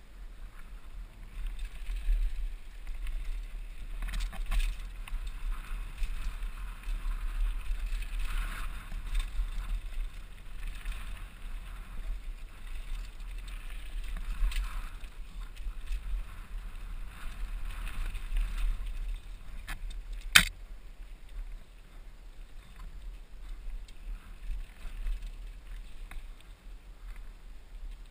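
Mountain bike rolling fast down a dry dirt singletrack, heard from a helmet camera: wind rumbling on the microphone over tyre and trail noise with scattered small rattles and clicks. One sharp knock about twenty seconds in is the loudest sound.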